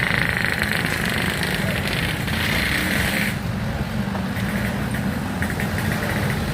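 Road traffic: vehicle engines running with a steady low rumble, and a high hiss over it that stops abruptly about three seconds in.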